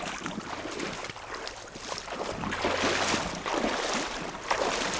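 River water splashing and rushing around people wading with a net, with wind on the microphone.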